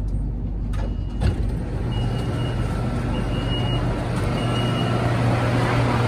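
BTS Skytrain EMU-B1 train heard from inside the car: a steady low running hum, a sharp click about a second in, then three evenly spaced high electronic beeps of about half a second each, the train's door signal.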